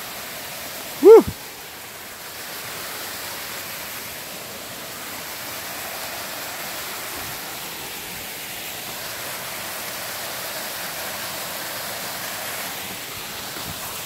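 Small waterfall spilling into a rock pool: a steady rush of water. About a second in, one short, loud, high-pitched voice cry rises and falls in pitch.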